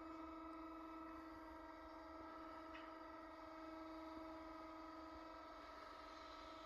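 Faint, steady electric hum from the Spomasz vacuum mixer's drive as its lid is opened under power.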